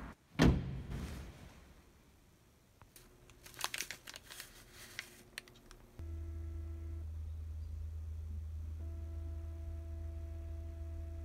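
A single loud knock about half a second in, then scattered light crinkling and clicking for a couple of seconds. About six seconds in, a steady low hum with a faint steady tone begins.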